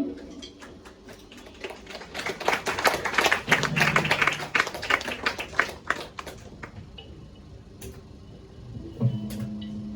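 Brief applause from a few people, a patter of claps that swells over a couple of seconds and then dies away.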